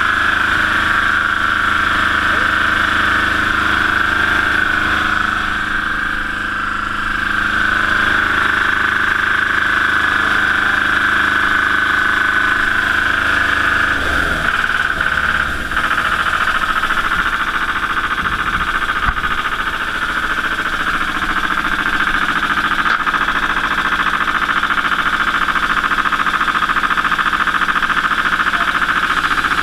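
Boat-mounted engine running steadily at idle, a constant drone with a strong whine in it. A few low bumps come around the middle as a diver hauls himself over the aluminium gunwale.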